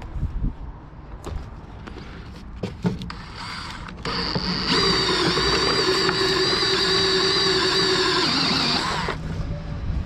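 Electric power-tool motor running at a steady speed for about five seconds, starting about four seconds in and stopping near the end, after a few knocks and handling clicks.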